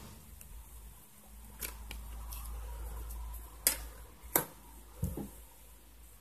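Plastic back cover of a smartphone being unclipped and pried off: a series of sharp clicks and snaps, the two loudest past the middle, over low handling rumble.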